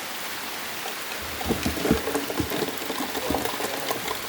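Steady rain falling, with irregular heavier drops hitting close by from about a second in.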